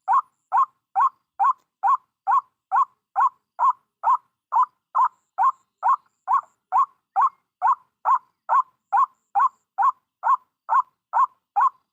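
White-breasted waterhen's call: one short, identical note repeated evenly about twice a second, without a break.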